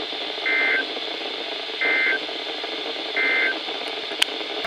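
Three short screeching data bursts from an Emergency Alert System SAME signal over NOAA Weather Radio, about a second and a half apart: the end-of-message code closing the watch broadcast. Steady radio hiss runs underneath, with a sharp click near the end.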